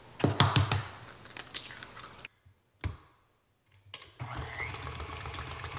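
A few sharp knocks and clicks in the first second, then a short near-silent gap. About four seconds in, a stand mixer starts and runs steadily, beating eggs.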